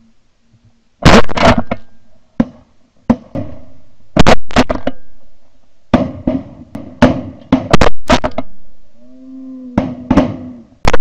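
Shotgun blasts fired at flying geese, about twenty shots in four rapid volleys, each report ringing out briefly. A short pitched honk-like call comes just before the last volley.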